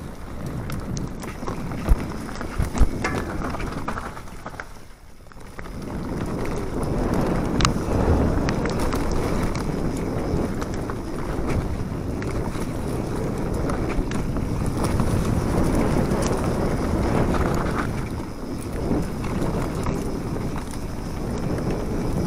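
Mountain bike riding fast down a dirt forest trail: tyres rolling over leaves and dirt with steady wind noise on the microphone. A couple of sharp knocks come about two to three seconds in, and the rush drops briefly around five seconds before picking up again.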